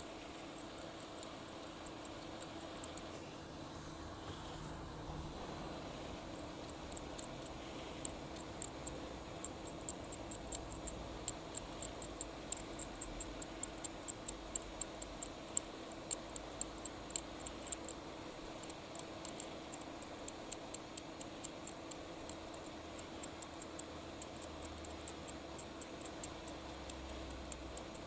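Steady low electrical hum at a workbench, with faint irregular high-pitched ticks, several a second, from about six seconds in, as small tools work on a phone's circuit board.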